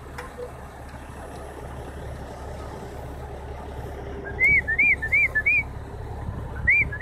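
Low, steady rumble of the idling tow truck's engine. From about four seconds in, a quick run of short whistled notes, each rising and falling, about three a second, which starts again near the end.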